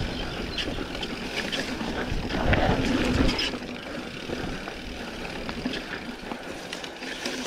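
Mountain bike descending a dirt trail: knobby tyres rolling, crunching and sliding over loose dirt and gravel, with small knocks and rattles from the bike and a low rumble of wind on the microphone. The ground noise swells about two to three seconds in, then eases.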